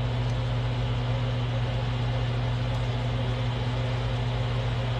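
A steady low hum with an even hiss, unchanging throughout, with no distinct events.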